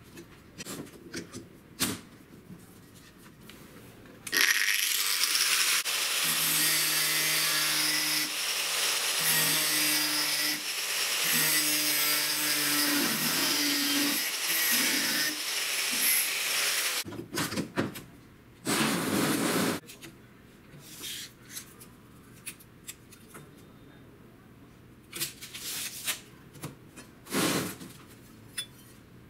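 Angle grinder with a cut-off disc cutting through a clamped steel flat bar, one steady cut lasting about thirteen seconds. Light clicks and knocks come before and after it, and there are two short, loud bursts later on.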